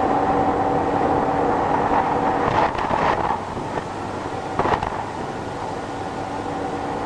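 A steady mechanical drone with a constant hum, broken twice by short, louder noisy bursts: one about two and a half seconds in, a shorter one near the middle.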